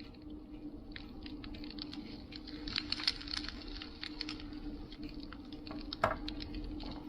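Recorded campfire crackle played back through the small speaker of a fireplace-effect lamp's sound module: irregular crackles and pops over a steady low hum, with a louder knock about six seconds in.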